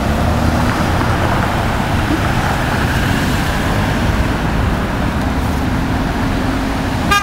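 Road traffic passing through an intersection: a steady rumble of car engines and tyres. A car horn sounds right at the end.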